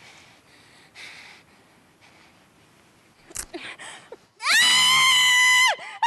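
Tape is torn off a gagged woman's mouth with a sharp snap. About a second later she lets out a long, high-pitched scream, which breaks off briefly near the end and starts again.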